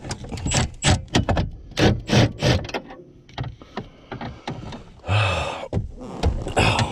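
Hand tools clicking and knocking against metal while the steering column's mounting bolts are worked on under a car's dashboard. The clicks come irregularly, four or five a second, for the first few seconds, and a short rushing noise comes about five seconds in.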